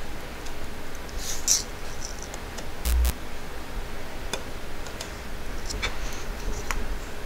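Flux sizzling briefly under a soldering iron as solder melts into a rail-to-tie joint, with small ticks and crackles and one dull knock about three seconds in.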